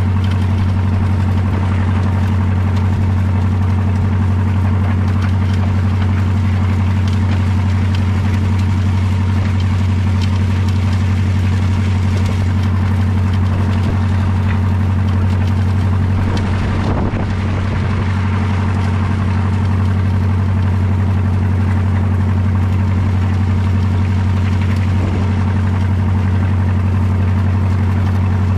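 John Deere tractor engine running at a steady pace while pulling a corn planter across the field, a constant low drone. The sound dips slightly and shifts for a moment a little past halfway, then runs on evenly.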